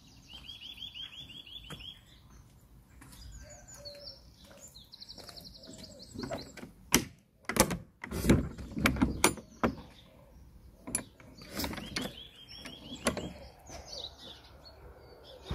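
Metal latch and bolt of a wooden garden gate clicking and knocking as the gate is unfastened and opened, a cluster of sharp clacks in the middle. A songbird trills in quick repeated notes near the start, again about five seconds in, and near the end.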